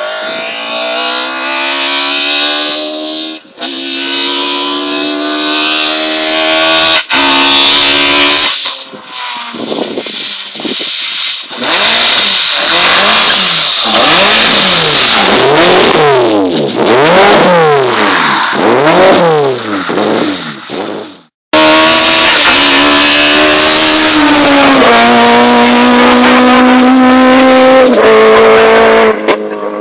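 Rally-prepared Lada 2101 engine revved hard: the pitch climbs, then swings up and down over and over, then pulls up and drops in steps as it goes through the gears. The sound cuts off abruptly several times between clips.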